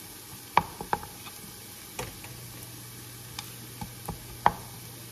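Wooden spatula knocking and scraping against a frying pan as fried rice is pushed aside, a handful of sharp taps over a soft, steady sizzle of the rice and butter frying. The loudest tap comes near the end.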